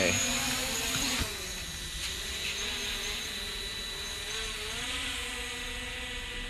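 DJI Mavic Pro quadcopter's propellers buzzing as it lifts off and climbs away. The whine drops in level about a second in, then holds steady.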